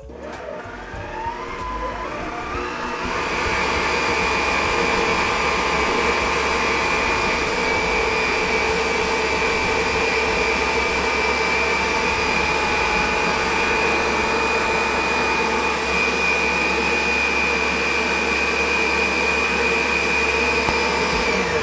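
Waring WSM7Q stand mixer motor whipping mayonnaise: it speeds up over the first three seconds to a steady high whine, then holds that speed.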